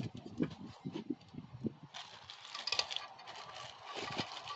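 Light metal clicks, taps and scrapes of engine parts being handled as valve lifters are set into a Predator 212 engine block, with a faint rustling from about two seconds in.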